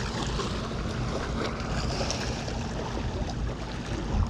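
Wind buffeting the microphone as a steady low rumble and hiss, with small waves washing against the shoreline rocks.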